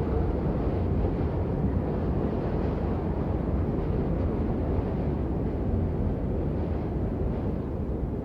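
Steady heavy rain: a dense, even noise that is heaviest in the low end, with no single drops standing out.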